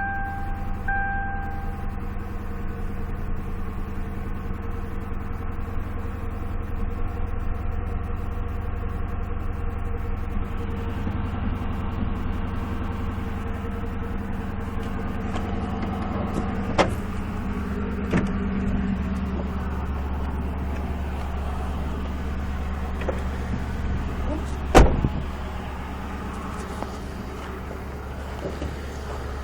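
Ford Crown Victoria Police Interceptor's 4.6-litre V8 idling steadily just after starting, with a few sharp clicks, the loudest about 25 seconds in.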